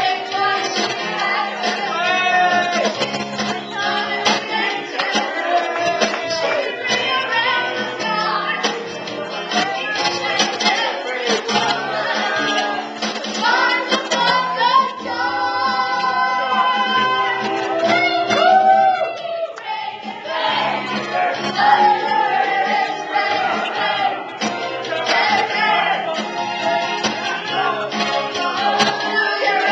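Music with singing voices throughout.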